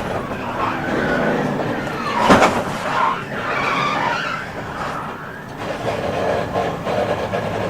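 NASCAR Sprint Cup stock car spinning, its tyres squealing in rising and falling whines over the engine noise, with one sharp bang a little over two seconds in.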